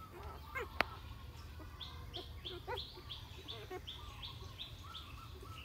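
A rapid run of short, high-pitched peeps, about three a second, with fainter lower squeaks and a single sharp click about a second in.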